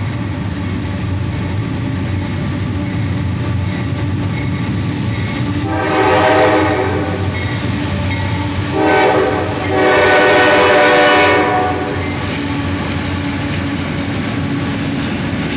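CSX GE AC44CW diesel locomotives passing with a steady rumble of engines and wheels on the rails. The lead locomotive's air horn sounds three blasts for the grade crossing, beginning about six seconds in: a long one, a short one, then the longest, ending around eleven and a half seconds.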